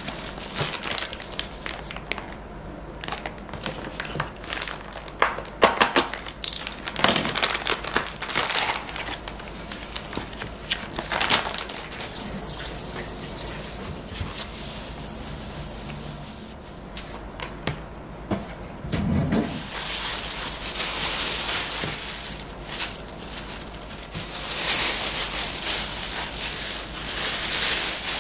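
Plastic packaging and disposable plastic gloves crinkling and rustling as they are handled, with scattered short clicks and taps on the counter; the rustling gets denser in the last third.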